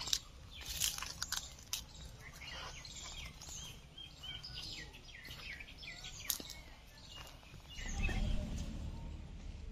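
Birds chirping and calling over a steady low background hum, with a few sharp clicks early on and a louder low rumble swelling about eight seconds in.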